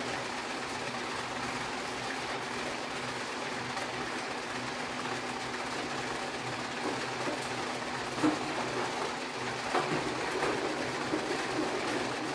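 OVO LUX 8000 egg sorting machine running after being switched on, an even mechanical noise with a steady hum. From about seven seconds in, occasional sharp clicks and knocks join in.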